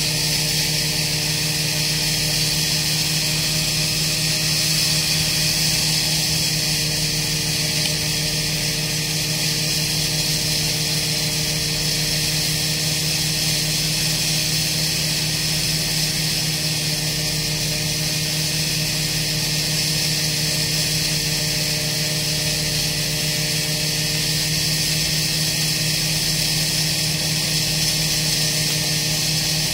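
Heavy construction machinery's diesel engine running steadily: a constant hum with a hiss over it and no strikes or changes in pace.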